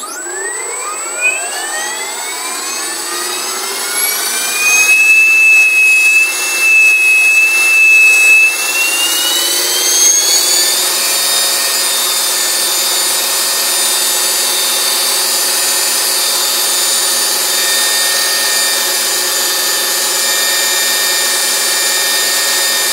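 Electric RC helicopter's motor and gearing spooling up a Vario two-bolt five-blade rotor head: a whine rising in pitch, holding steady from about five seconds in, climbing again to about eleven seconds, then running on as a steady high whine at head speed.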